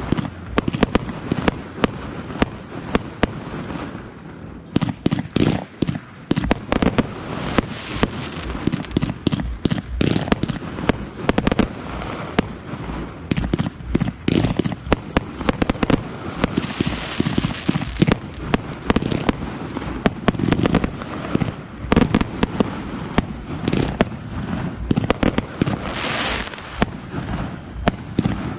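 Fireworks display going off as a rapid, continuous barrage of bangs and reports, thinning briefly about four seconds in. There are denser hissing stretches about two-thirds of the way through and again near the end.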